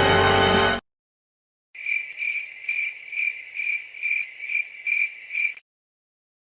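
Crickets chirping, the stock comedy 'crickets' sound effect: a high chirp repeating about twice a second for about four seconds. Before it, a music cue cuts off abruptly under a second in.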